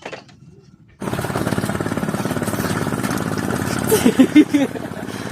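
A small engine running with a rapid, steady chugging, cutting in suddenly about a second in; a short voice sound rises over it near the middle.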